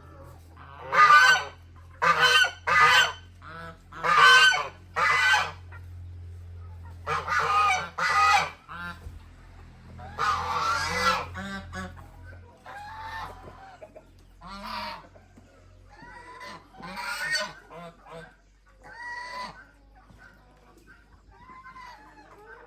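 Farm poultry calling: a run of loud calls, each about half a second long, packed into the first dozen seconds, then fainter, scattered calls.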